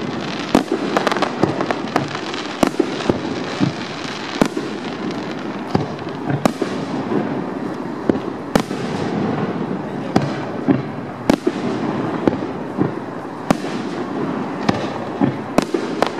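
Aerial firework shells bursting in a display: a long run of sharp bangs at irregular intervals, often a second or less apart, over a continuous noisy background between the reports.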